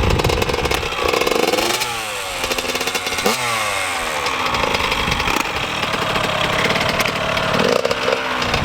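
Yamaha YZ85 single-cylinder two-stroke dirt bike engine revving, its pitch rising and falling several times.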